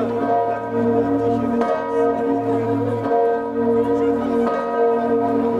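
Several church bells of the Saint-Maclou cathedral tower ringing together in a peal, their tones overlapping. The lowest bell sounds about every one and a half seconds under the higher ones.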